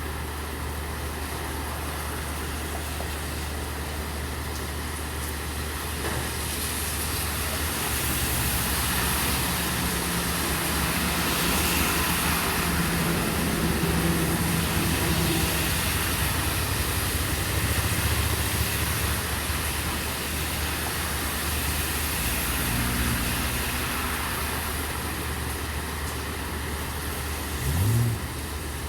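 Steady rain hiss on a city street, with a motor vehicle's engine running beneath it that grows louder about a quarter of the way in and eases off later.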